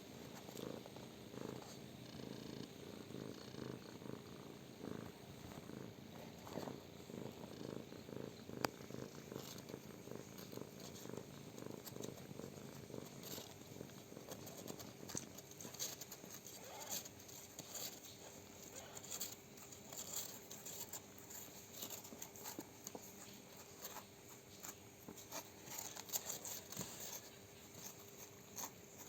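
Mother cat purring, a low pulsing rumble that is strongest in the first half and fades later, with soft clicks and rustles over it.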